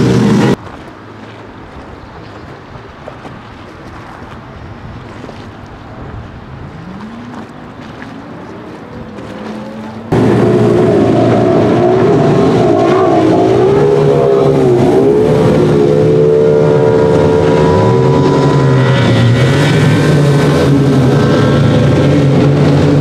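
Racing speedboats' outboard engines at full throttle. A loud pass is cut off half a second in; a quieter stretch follows with a distant engine's pitch rising, then about ten seconds in a close engine comes in loud, its pitch rising and falling over and over.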